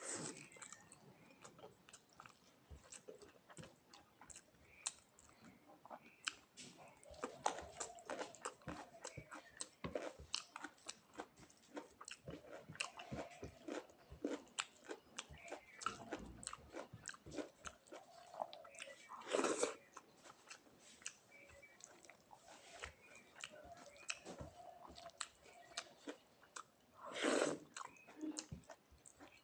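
Close-miked mukbang chewing of rice, salad, papad and pumpkin fry: a steady run of small mouth clicks and chewing, with two louder crunches, one about two-thirds of the way in and one near the end.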